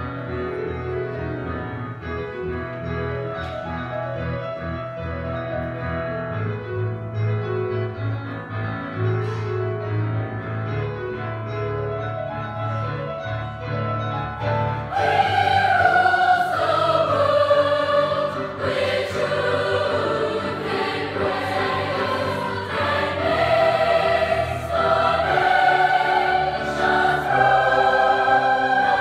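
Youth choir performing a Celtic-style choral piece. The first half is quieter; about halfway through the voices come in louder and fuller.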